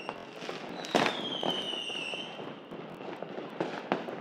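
Fireworks going off. A loud bang about a second in is followed by a high whistle that falls slowly in pitch for about a second, with scattered smaller pops and crackles throughout.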